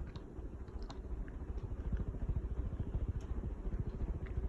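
Hunter Westminster 52-inch ceiling fan running on medium speed, its downdraft buffeting the microphone with an unsteady low rumble and a few faint ticks.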